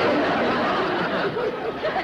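Sitcom laugh track: an audience laughing after a punchline, a dense, steady wash of laughter.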